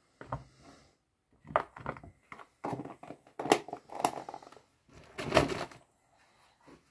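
A clear plastic food container being handled, with a run of irregular clatters, knocks and rustles. The loudest knock comes about five seconds in.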